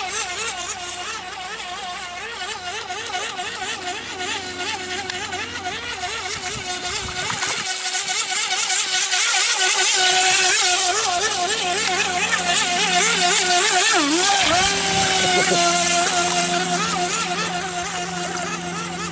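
Small radio-controlled model boat's motor whining, its pitch wavering quickly up and down. The motor gets louder about ten seconds in, then settles to a steadier tone near the end.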